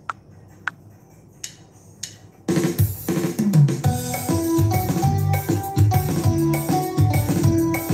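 A few sharp clicks, then about two and a half seconds in, a Sony MHC-V13 speaker system starts playing music with a strong drum beat.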